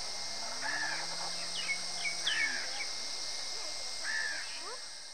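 Crows cawing, three calls spaced about one to two seconds apart, with smaller birds chirping in between, over a steady high hiss. The sound fades out near the end.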